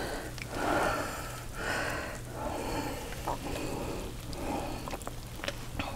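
Soft breathing, about one breath a second, with a few faint clicks and scrapes of a spoon against a stainless saucepan as thick hot toffee is poured out. A low steady hum runs underneath.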